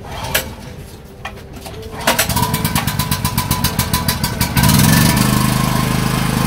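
Konzberg Professional portable generator engine starting. After a couple of separate knocks, the engine catches about two seconds in with a rapid, even chug, and about halfway through it becomes louder and runs steadily.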